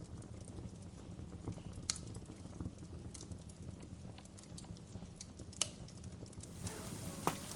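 Campfire burning: a steady low rumble with irregular crackles and sharp pops of burning wood, the loudest about 2 seconds and 5.5 seconds in and one near the end. A brighter hiss joins near the end.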